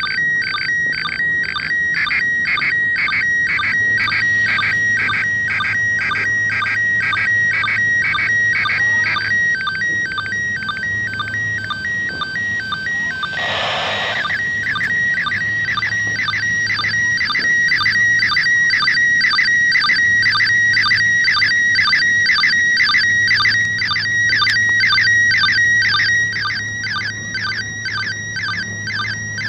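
Slow-scan TV signal from the International Space Station playing from a 2 m handheld radio's speaker: a shrill warbling tone pattern that repeats about twice a second, each repeat one scan line of the picture being sent. About halfway through, a short burst of static breaks into the signal.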